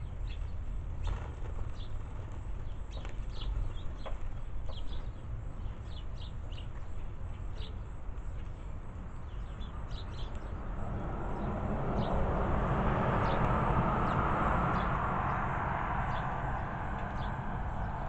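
Sparrows chirping at a seed feeder: many short, high chirps, densest in the first half. From about ten seconds in, a rush of noise swells and then fades under the chirps, over a low steady rumble.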